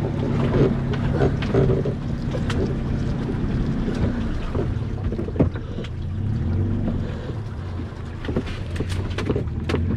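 A tow vehicle's engine running steadily under load, its pitch shifting a few times, as it pulls a kayak on a trailer out of the water up a ramp. The trailer and kayak knock and rattle over the ground.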